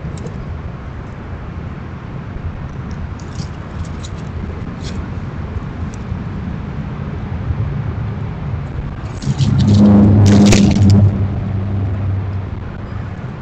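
Steady low rumble of road traffic, with a vehicle passing louder for about two seconds around nine to eleven seconds in. Faint scattered clicks sit above it.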